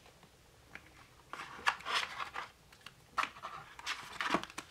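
Two stacks of tarot cards being lifted out of a boxed set's plastic insert by hand: a string of light scrapes, clicks and rustles of card on plastic, starting about a second in.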